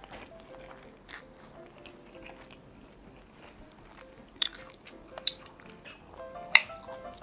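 Close-miked chewing and biting of spicy steamed seafood, with several sharp clicks in the second half, the loudest about six and a half seconds in.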